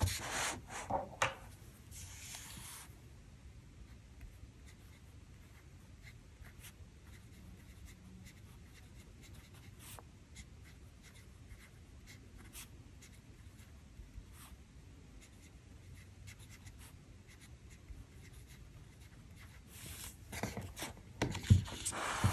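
Pen writing a short note on a Hobonichi Cousin planner page: faint, scattered scratching strokes. Paper handling and rubbing is louder in the first few seconds and again near the end.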